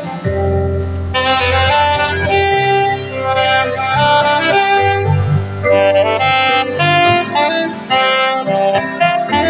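Saxophone playing a melody of held and moving notes over a backing accompaniment with sustained bass notes.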